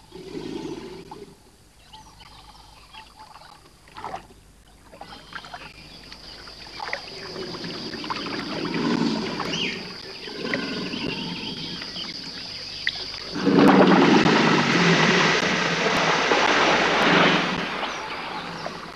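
Swamp water sloshing and splashing around a person wading through it, with a louder, churning stretch of splashing lasting about four seconds near the end.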